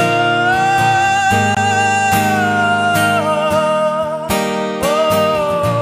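A man sings long held notes over a strummed acoustic guitar, a solo live performance. The first note is held for about three seconds and a second one near the end.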